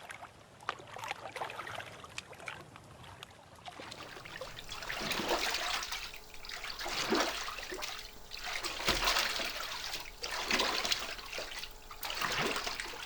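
Water sloshing and trickling, faint at first, then splashing in irregular swells about once a second.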